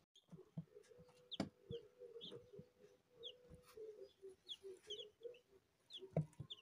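Newly hatched chicken chicks in a brooder peeping faintly: scattered short, high cheeps, with a soft knock about a second and a half in and another near the end.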